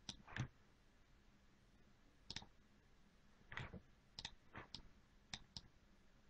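Computer mouse buttons clicking, about nine sharp clicks at irregular intervals, some in quick pairs, over faint room hum.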